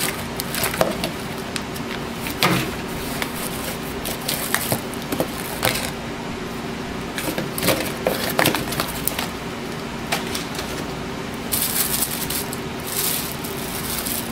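Plastic bags and cardboard packing being handled: irregular crinkles, rustles and light clicks, with a longer stretch of crinkling about twelve seconds in.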